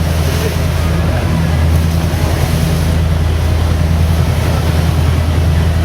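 Boat's engine droning steadily, heard from on board, over a haze of wind and water noise.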